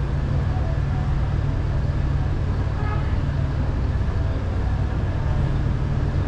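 Steady low road rumble of a car being driven, with a brief faint tone about three seconds in.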